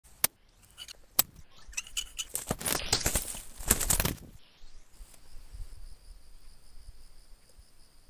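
A partridge caught in a snare trap flapping its wings in a rapid flurry for about two seconds, after two sharp clicks. A steady high insect buzz follows.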